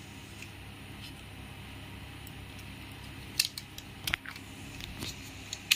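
Handling sounds of a rubber band being stretched around paper covering a paper cup: soft rustling, then a few sharp clicks and taps in the second half, over a low steady background hum.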